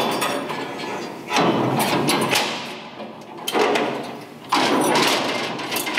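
Stainless-steel grill grate and griddle plate being lifted and shifted in a gas grill: about four metal scrapes and clanks, each fading away over a second or so.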